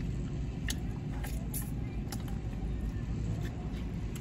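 Steady low rumble of a car, with a few faint short clicks and smacks of someone eating.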